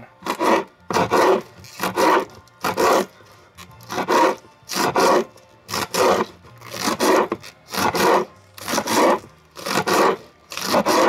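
Kitchen knife slicing through rolled-up collard green leaves on a wooden cutting board, cutting them into strips: a steady rhythm of slicing strokes, about one a second.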